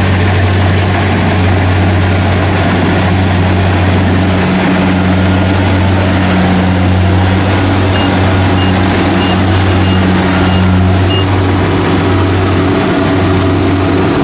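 Kubota DC-70 Pro combine harvester's diesel engine running steadily under load as the machine cuts and threshes lodged rice. A string of short, high beeps sounds about two-thirds of the way through.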